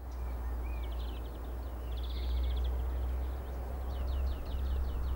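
Small birds chirping and trilling in short rapid series of high notes, over a steady low rumble and background hiss.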